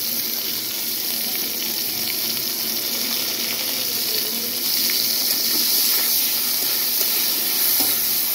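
Hot oil sizzling steadily in a kadai as pieces of tomato and potato are dropped in, growing a little louder about five seconds in.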